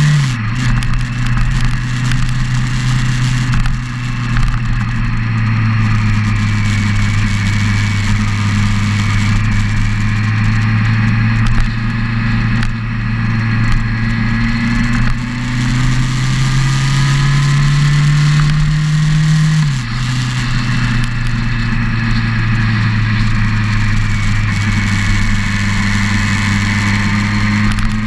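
Motorcycle engine running under way, heard from a camera mounted on the bike. Its note holds steady, climbs slowly as it pulls, then drops suddenly about two-thirds of the way in.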